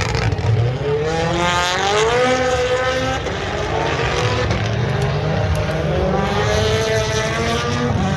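Rally car engine accelerating hard, its pitch climbing, dropping near three seconds in and climbing again in the second half, over a steady low rumble.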